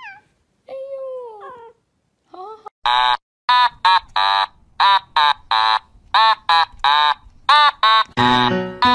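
A cat meowing briefly, then a rapid run of loud, short, high-pitched squealing calls, about two a second. Music comes in near the end.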